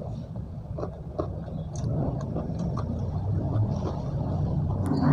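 Chewing close to the microphone, with scattered small wet clicks and crunches, over a steady low rumble.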